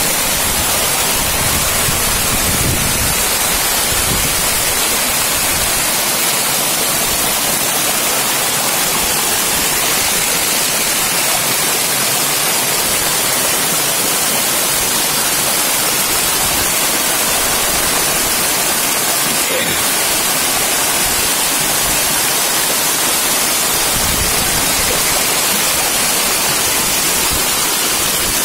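Muddy floodwater rushing and churning as it pours over a small drop, a loud, steady roar of falling water.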